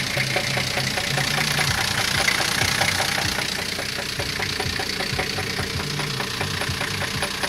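Engine idling with a regular, rapid knock from inside it, the kind of knock that the owners fear will spin the crankshaft bearing shells.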